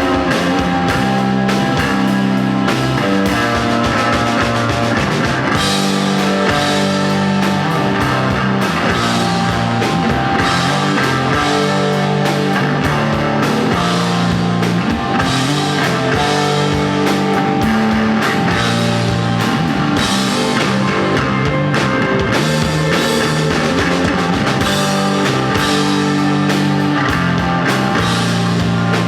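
A rock band playing live, with electric guitar over a drum kit, loud and without a break.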